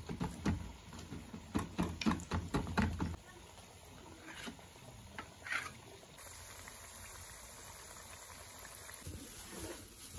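Knife cutting through dough on a wooden cutting board: a quick run of short knocks against the board over the first three seconds, then a faint steady hiss.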